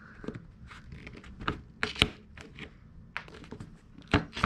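Tin snips biting through the thick plastic of a dirt bike's rear fender: several sharp snips and cracks at uneven intervals, the loudest about two seconds in.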